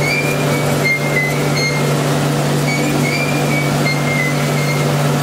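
Industrial machinery of a refrigerator recycling line running steadily and loud, with a constant low hum and short high squeaks recurring irregularly.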